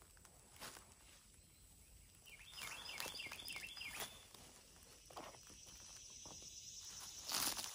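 Faint rustling and crackling of garden plants and footsteps while vegetables are picked by hand, loudest near the end. A bird gives a quick run of chirps about two and a half seconds in, and a thin high steady whine comes in during the second half.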